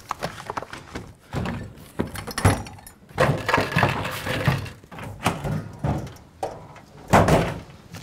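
Things on a cluttered shelf clattering, knocking and thumping as they are rummaged through and shoved about in a hurry, with irregular knocks and a loud thump near the end.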